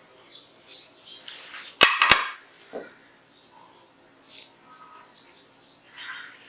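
Small metal clicks and taps from a pistol's parts being handled and taken apart, with two sharp clicks in quick succession about two seconds in.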